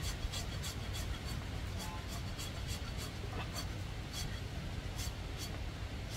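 A knife paring the sole of an elephant's foot: short, uneven scraping strokes, about one or two a second, over a low steady rumble.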